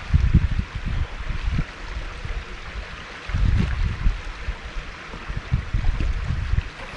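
River water running steadily over a stony bed, with gusts of wind buffeting the microphone about a second in and again in the second half.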